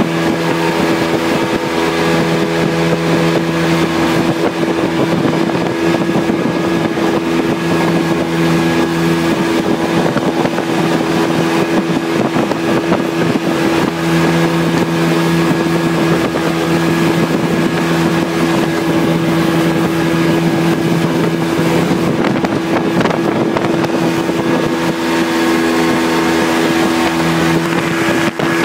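Mini jetboat's engine running steadily at cruising speed, a constant drone that holds one pitch, over the rush of water and wind on the microphone.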